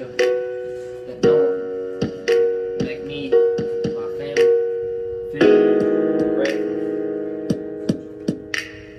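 Background piano music: a chord struck about once a second, then a louder, fuller chord a little past the middle that is held and slowly fades.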